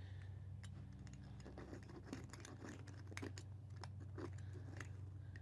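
A blade cutting through thick car carpet and its padding: a run of small, irregular scratchy crunches and clicks over a steady low hum.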